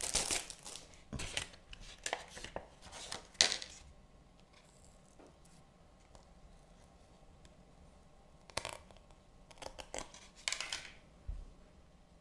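Plastic packaging and a plastic false-eyelash tray being handled: a run of short crinkles and clicks over the first few seconds, then a quiet stretch, then a few more crinkles near the end.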